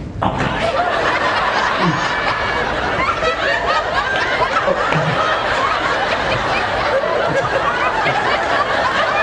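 Audience laughing, many voices together, breaking out all at once and keeping up.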